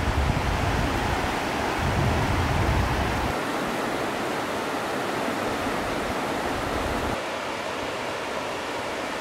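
Steady rush of whitewater churning through a river rapid. A low wind rumble on the microphone drops away about three seconds in.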